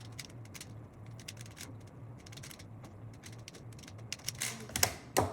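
3x3 Rubik's cube being turned fast during a speed solve: a quick run of plastic clicks and clacks, with a few louder clacks near the end.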